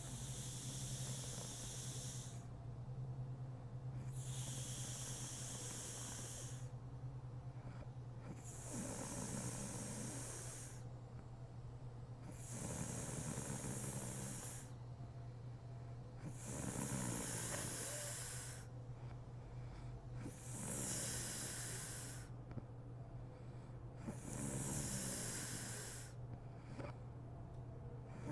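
A sleeping woman snoring: slow, regular hissing breaths about every four seconds, several carrying a rattling snore. A steady low hum runs underneath.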